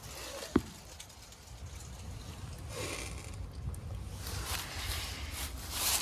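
Rustling and crunching of dry fallen leaves as someone steps and reaches among them, in short bursts, with one sharp click about half a second in and a low rumble underneath.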